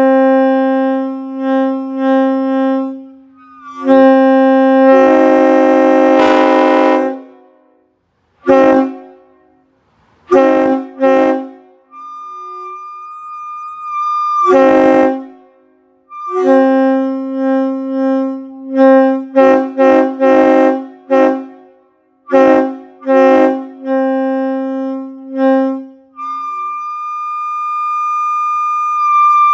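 Nathan K5HLA five-chime train horn blown in a series of blasts: long steady chords, some short sharp toots in quick succession, and brief silences between them. Twice a single higher steady tone sounds on its own for a few seconds.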